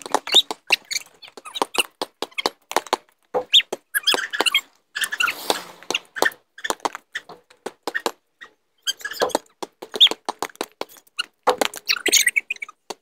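Basketball bouncing and knocking on a driveway in quick, irregular hits, with short high squeaks from sneakers scuffing the pavement.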